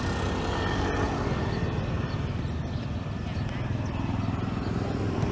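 Steady outdoor background noise with a low rumble, under faint shouts and voices of players on the pitch.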